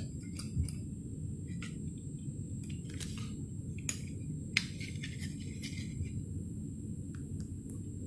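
Small, irregular plastic clicks and taps as the circuit board of an LG TV remote control is slid back into its plastic casing, over a steady low background hum.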